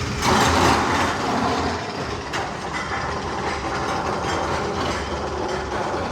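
Magnum XL-200 steel roller coaster train rolling on its track with a steady rattling clatter, a louder surge just after the start and a few sharp clacks about two seconds in.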